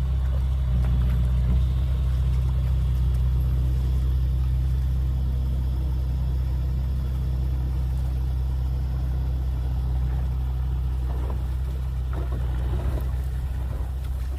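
Heavy diesel engine of earthmoving equipment running steadily with a deep, even rumble.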